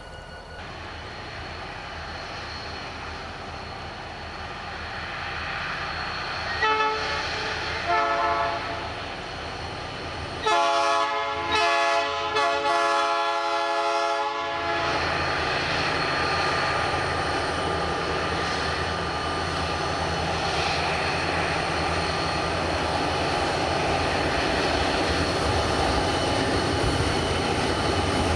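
Diesel freight locomotive sounding its air horn: two short blasts, then a longer blast broken by brief gaps, over the rumble of the train that grows louder as it approaches.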